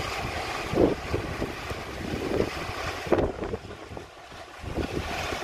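Gusting sandstorm wind rushing and buffeting the phone's microphone in surges, easing briefly about four seconds in.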